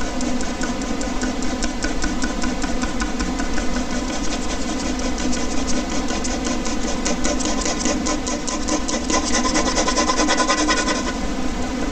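Ballpoint pen scratching on paper in rapid back-and-forth strokes, about six a second, stopping near the end. Under it runs the steady hum of an air conditioner.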